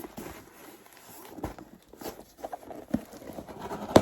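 Hands handling and opening a cardboard box: scattered light knocks and thumps with soft rustling.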